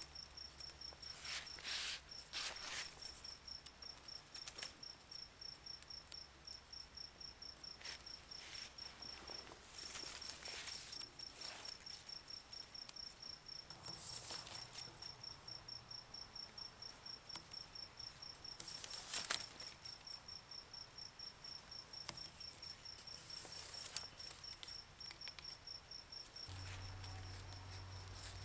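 Crickets chirping in a steady, rapid pulsed trill, with occasional soft rustling swishes.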